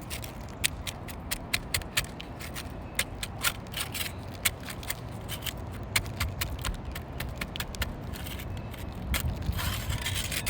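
Putty knife working under asphalt roof shingles to break their sealant strips: a run of irregular sharp clicks and crackles, turning into a denser, rougher scraping near the end.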